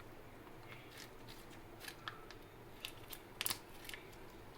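Faint, scattered clicks and light scrapes of a spoon scooping ginger garlic paste and tapping against the bowl of vegetables, loudest a little past three seconds in, over a low steady hum.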